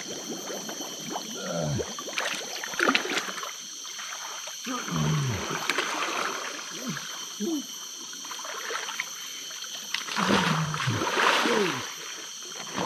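Several short, low calls, each falling steeply in pitch, over a steady high-pitched drone, with splashy water noise about five seconds in and again near ten seconds.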